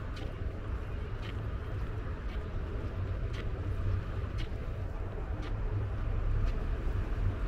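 City street background: a steady low traffic rumble with a faint tick about once a second.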